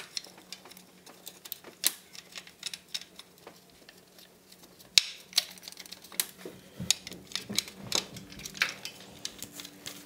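Irregular light metal clicks and taps as a cam chain guide and its 10 mm bolts are fitted to an engine by hand. The sharpest click comes about five seconds in, over a faint steady hum.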